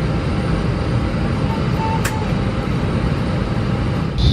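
Steady low rushing hum of an Airbus A319's cabin while it is parked at the gate before departure. A faint short tone and a single sharp click come about halfway through.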